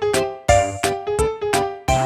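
Upbeat background music: a synthesized keyboard melody over a steady beat.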